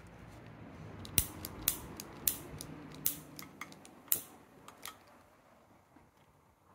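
Sharp clicks of a utility lighter's igniter, about six at uneven spacing, as it is worked to light the methylated spirit priming a brass kerosene blowtorch. Under the clicks a faint steady low rush fades out.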